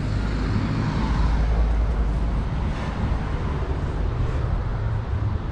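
City street noise: a steady low rumble, like passing traffic, under a general hiss, swelling slightly about a second in.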